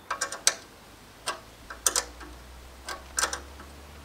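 Irregular sharp metal clicks and knocks, about nine of them, as the sheet-metal blade guard cover of a stone saw is fitted and screwed down by hand.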